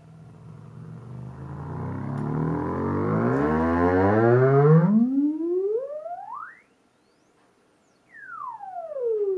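Bare Cambridge SoundWorks PCWorks 5-inch subwoofer driver playing a sine sweep in free air: a deep, rough-edged tone that slowly rises in pitch and grows louder as the cone swings hard, then climbs steeply to a high whistle and cuts off suddenly. After a second or so of silence a new tone starts high and glides down.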